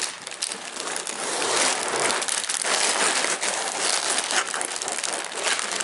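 Plastic bags of LEGO pieces crinkling and rustling as they are handled, a continuous crackle with many small sharp crackles.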